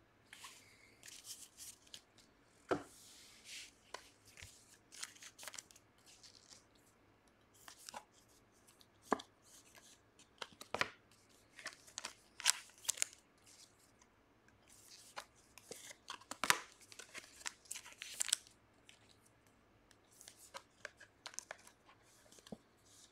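Trading cards handled and slid into clear rigid plastic card holders: an irregular run of light clicks, taps and scraping rustles of card and plastic.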